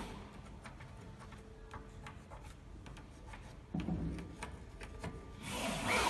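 A steel mortise lock case is handled and worked into a wooden door: rubbing and scraping with small clicks and taps, a louder knock about four seconds in, and a louder scrape building near the end.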